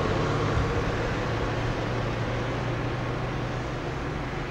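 Bus engine running as the bus drives away, a steady low hum under road noise that slowly fades.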